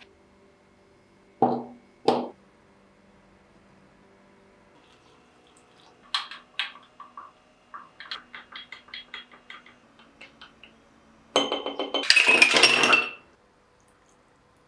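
A chocolate bar snapped twice, then a wooden stirrer clinking in a glass in a quick run of light clicks, then ice cubes dropped into the glass, rattling for about two seconds.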